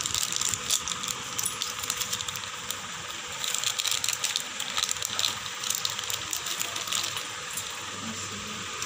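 Plastic paneer packet crinkling as it is snipped open with scissors and the block of paneer is worked out of it, in crackly rustling spells in the first two seconds and again around the middle, over a faint steady hum.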